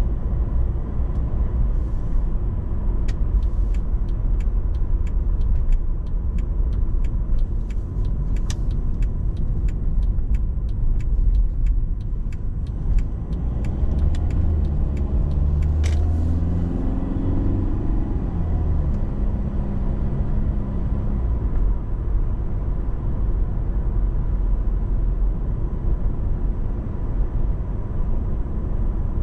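Mercedes-Benz C220 CDI driving along, a steady low rumble of road and running noise. A run of sharp irregular ticks comes in the first third, and a pitched tone rises and falls in the middle.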